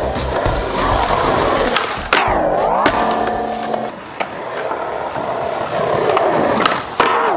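Skateboard wheels rolling over concrete, with several sharp clacks of the board hitting the ground.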